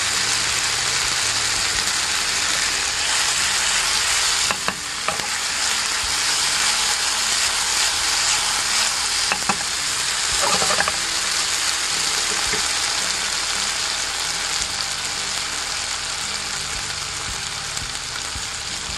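Snail meat frying in butter and olive oil in a frying pan: a loud, steady sizzle as it is stir-fried, with a few short clicks around five and ten seconds in.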